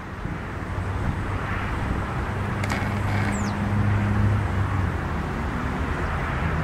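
Jet noise from a Boeing 737-200's Pratt & Whitney JT8D low-bypass turbofans as the airliner comes in low on approach. It swells over the first couple of seconds and then holds steady. A click and a short, high, falling whistle come about three seconds in.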